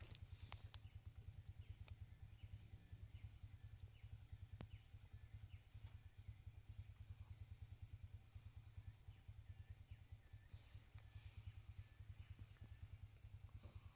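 Faint outdoor ambience: a steady high insect drone with small repeated chirps, over a low, fast, even pulsing.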